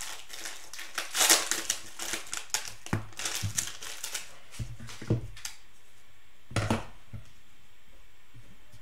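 Plastic cello pack wrapper crinkling and being crumpled in the hands for about four seconds, followed by a few dull knocks.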